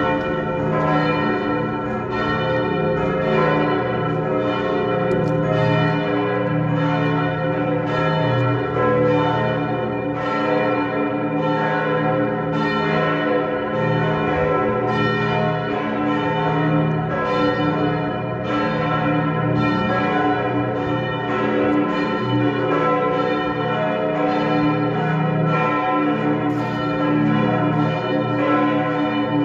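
The church bells of Lund Cathedral ringing together to call to High Mass: several swinging bells striking over one another in a steady, continuous peal, each strike hanging on as a long ringing hum.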